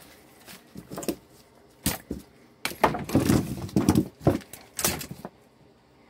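Tools and parts being picked up and set down: a string of knocks, clatters and rattles, sparse at first and then close together, as a work area is cleared.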